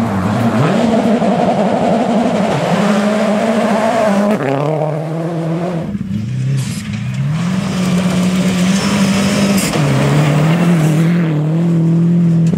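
Rally car engine running hard, its pitch climbing and then dropping in steps as it changes gear, several times over.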